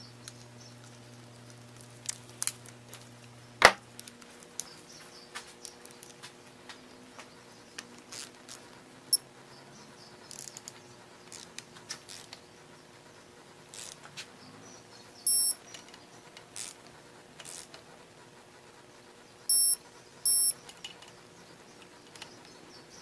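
Digital torque wrench beeping as oil pump bolts are brought up to torque: one short high beep about fifteen seconds in and two more a second apart near the end, the signal that the set torque has been reached. Scattered clicks and clinks of tools being handled come before the beeps, the loudest a sharp click a few seconds in.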